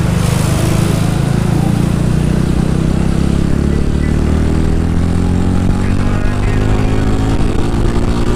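Rusi Classic 250 motorcycle engine running while riding, with a steady rush of noise over it; the engine pitch climbs gradually through the second half as the bike accelerates.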